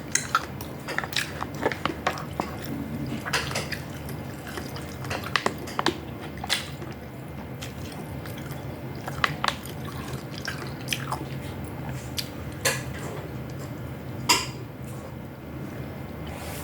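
Close-up eating sounds: chewing and wet mouth sounds, with scattered sharp clicks of cutlery against dishes, the loudest near the end, over a low steady hum.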